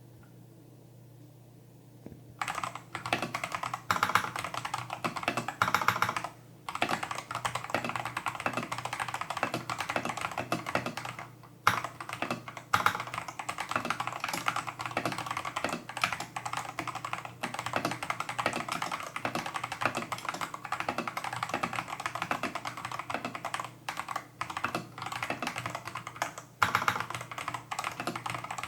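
Tester68 mechanical keyboard with stock, factory-lubed Holy Panda clone tactile switches and XDA-profile keycaps being typed on fast and continuously. The typing starts about two seconds in and stops briefly a few times.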